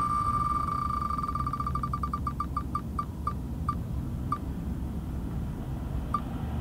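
Phone wheel-spinner app's ticking sound effect as the wheel spins down: rapid ticks at one pitch, at first so fast they blur into a tone, slowing steadily until a last lone tick near the end, over a low rumble.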